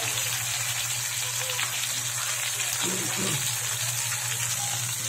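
Skin-on fish pieces shallow-frying in hot oil in a pan: a steady sizzle with fine spattering crackles.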